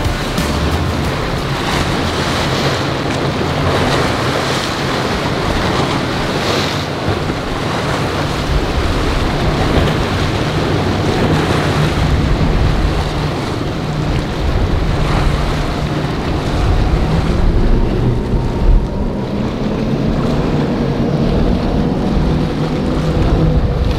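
Cigarette Tirranna speedboat's outboard engines droning low as the hull runs through choppy inlet waves, with a steady rush of spray and surf. Heavy wind buffets the microphone.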